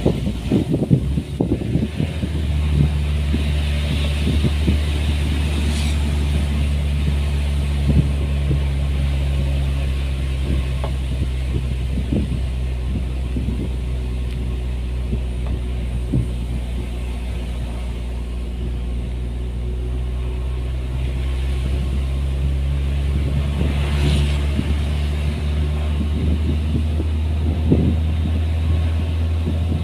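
An engine running steadily at an even speed, settling to a constant low pitch about two seconds in, with a few knocks before that.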